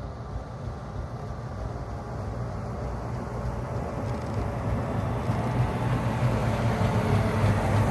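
Liebherr road-rail excavator's diesel engine running steadily as it drives along the track towing a flat wagon, growing louder as it approaches.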